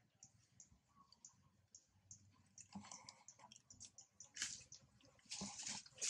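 Faint high ticking, a couple of ticks a second, then from about three seconds in a few louder scuffs and scrapes of a macaque's hands and feet as she climbs onto a clay pot, loudest near the end.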